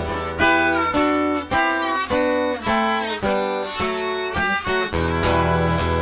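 Harmonica playing a blues melody of short and held notes, with an acoustic guitar strumming underneath.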